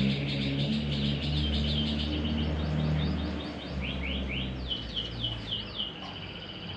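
Domestic canary singing: fast, continuous trills, then about four seconds in a run of quick rising sweeps over a held high note. Low, steady background tones that shift in pitch sit underneath.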